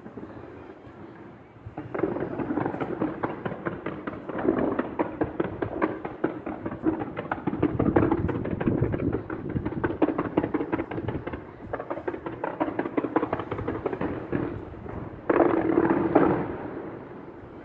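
Distant fireworks display: rapid, near-continuous crackling and popping, with a sudden louder burst about fifteen seconds in.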